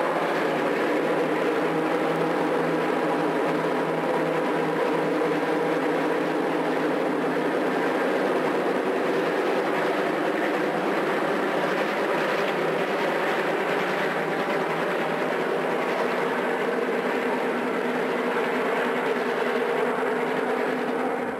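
Rio Grande passenger train's F-unit diesel locomotives running under power as the train passes: a steady engine drone with several held tones over the rumble of the train.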